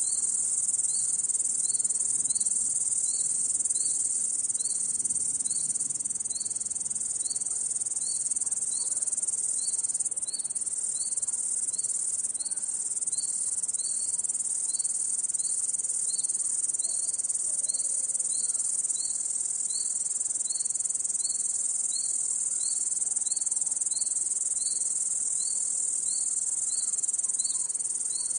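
Crickets chirping in a steady, high-pitched chorus, with a second, lower short rising chirp repeating about twice a second.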